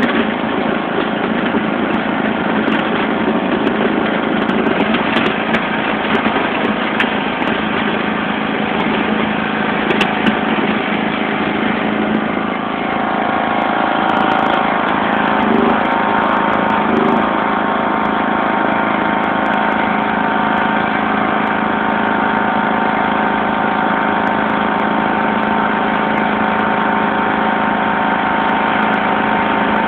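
1991 John Deere LX176 lawn tractor engine running steadily while plowing snow. Its note changes about halfway through as the tractor works the blade.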